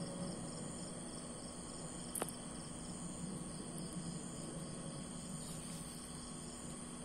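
Crickets chirping in a steady, rapid, regular pulse, over a faint steady low hum, with a single sharp click about two seconds in.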